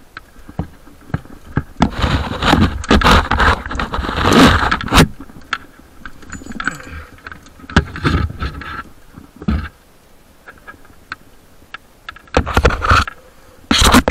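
Tree-climbing gear handled close to the microphone: metal hardware clinking and rope scraping. There are loud bursts of scraping about two to five seconds in and again near the end, with scattered clicks in between.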